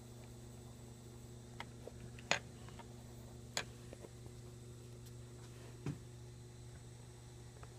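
A few short, sharp clicks and a duller knock from small objects being handled on a desk, over a steady low hum.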